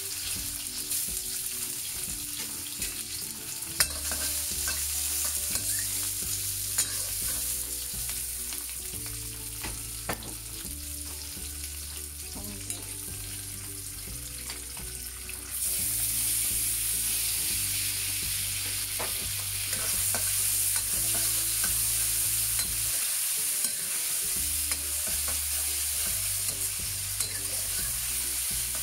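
Oil sizzling in an iron wok as ginger, carrot and fried bean curd stir-fry, with scattered clicks of a metal spatula against the wok. About halfway through, the sizzle grows louder as sliced marinated shiitake mushrooms go into the hot oil.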